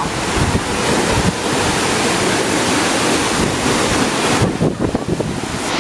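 Waterfall rushing with a steady roar of falling water, with wind buffeting the microphone in uneven low rumbles.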